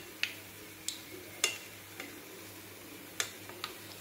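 About six sharp, irregular metal clicks and taps as a metal skewer knocks against the iron kadai and the murukku mould while turning the frying achu murukku, over a faint steady sizzle of the hot oil.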